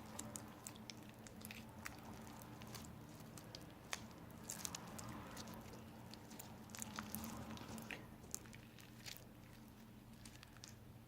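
Borax slime being squeezed and kneaded by hand, making faint, irregular little pops and squishes as air bubbles in the slime burst.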